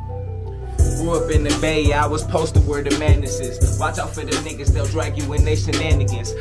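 Hip hop beat with a heavy bass line and kick drum, with rapping over it; the hi-hats and full beat come in about a second in.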